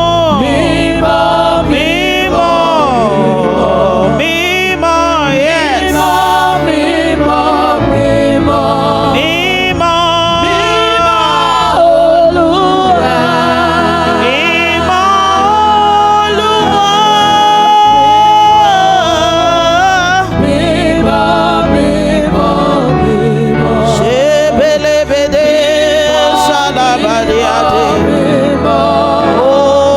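Gospel singing with vibrato over sustained instrumental accompaniment.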